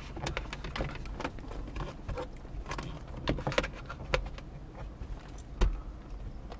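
Handling noise from a glass stick thermometer and the camera being moved about: irregular light clicks and taps, with one louder thump near the end.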